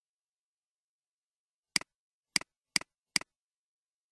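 Four sharp computer mouse clicks picking points on screen, starting about two seconds in and then coming quickly, about half a second apart. Each is a press-and-release double tick.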